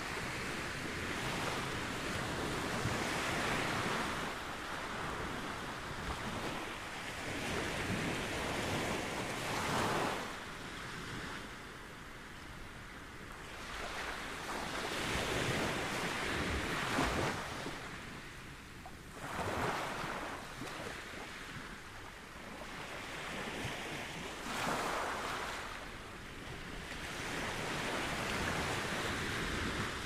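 Small ocean waves breaking and washing up a beach. The rush of surf swells and fades every few seconds, with a few stronger surges.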